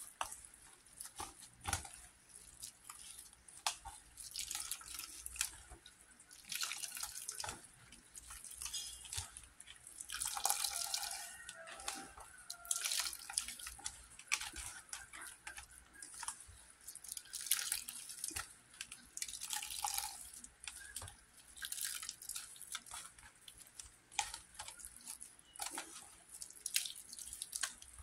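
Hands squeezing and kneading wet grated coconut in water, with irregular squelching and dripping as the coconut milk is wrung out.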